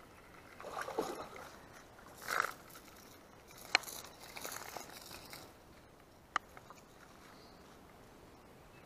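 Rustling and handling noises as a small bass is lifted out of the water on rod and line, with two sharp clicks, the first a little under four seconds in and the second about two and a half seconds later.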